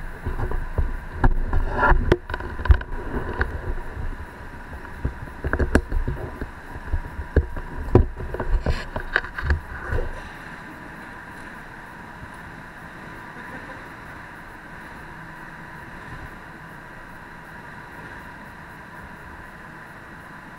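Handling noise on a small action camera's microphone: rubbing, bumps and sharp knocks for about ten seconds. It then settles into a steady quiet hiss with a faint constant high tone.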